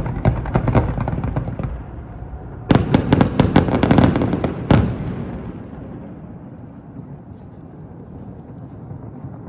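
Aerial fireworks going off in rapid runs of bangs, several a second. A fresh volley starts about three seconds in and ends with one louder bang, after which the booms die away into a low rumble.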